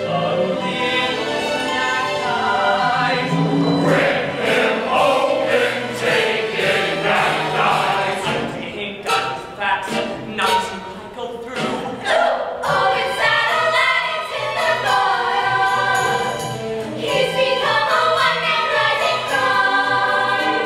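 A young musical-theatre cast singing a show tune together in chorus over a recorded accompaniment track.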